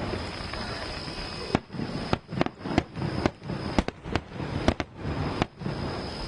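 Aerial fireworks display: after a second or so of rumbling haze, a quick, irregular run of about a dozen sharp bangs from shells bursting overhead.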